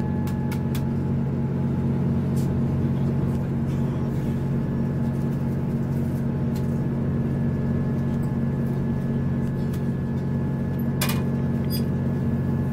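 Steady running drone of a diesel passenger train in motion, heard from inside the carriage, with a few light clicks and a brief rattle about eleven seconds in.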